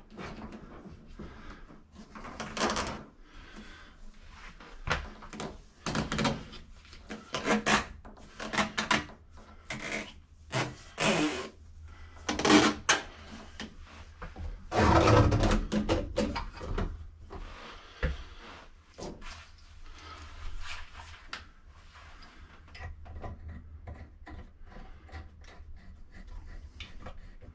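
Washing machine hoses being handled and fitted at a wall outlet box: a corrugated plastic drain hose pushed into the drain and braided supply hoses brought up to the valves, giving irregular knocks, rubbing and clatter. The loudest is a scrape of about a second midway.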